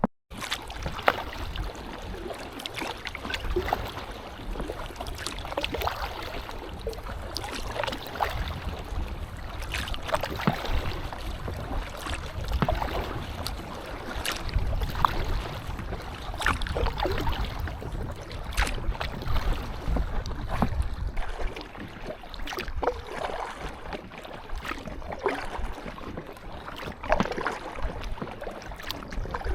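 Kayak paddle blades dipping and splashing in the lake at an irregular rhythm of a stroke every second or two, with water sloshing against an inflatable kayak's hull. A low rumble of wind buffets the microphone throughout.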